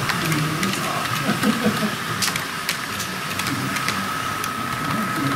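Small electric motor of a 00 gauge model train whining steadily as the unit runs along the layout, louder from about three and a half seconds in, with scattered light clicks and crowd murmur behind it.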